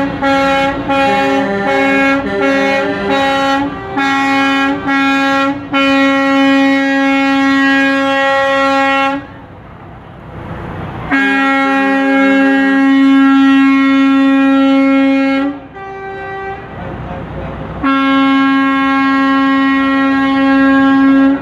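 Semi truck's air horn blaring: a quick string of short toots over the first five seconds or so, then three long, steady blasts with short gaps between.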